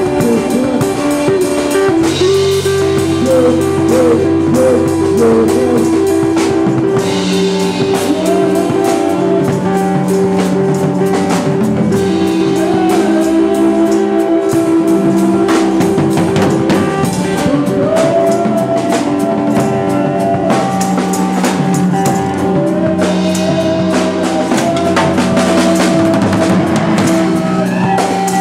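Live improvised rock jam: electric guitars and bass over a drum kit, with long, wavering high notes and a steady run of drum and cymbal hits.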